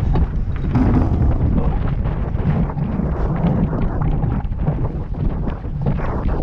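Heavy wind buffeting the microphone over the rush and splash of water along the hull of a racing sailboat moving fast under sail.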